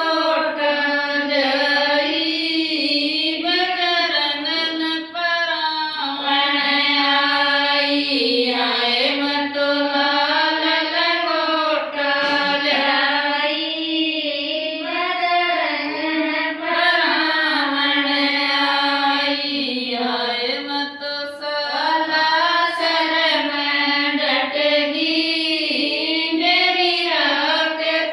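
A group of women singing a Marwari devotional bhajan to Balaji together in a ratijaga style. The sung phrases run on one after another, with only brief breaks between lines.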